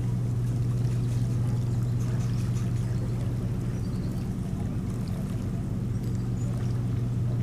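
Outdoor webcam ambience: a steady low hum under an even rushing noise, with no distinct events.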